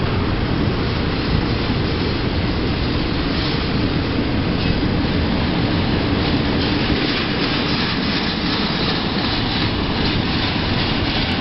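Freight train of enclosed autorack cars rolling past beneath, a loud, steady rumble of wheels on rail.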